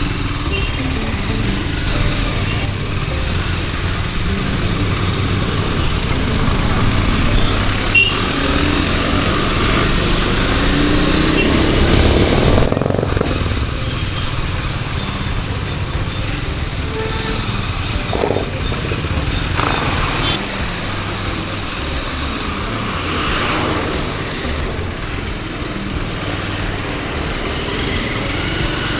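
Motorcycle ride in traffic: the engine running under way with steady wind and road noise on the microphone, and a rising engine note about twelve seconds in.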